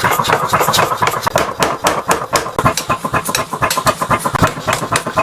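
Rapid, evenly spaced hammer blows, about six a second, forging a hot steel blank cut from an excavator claw hook into a cleaver.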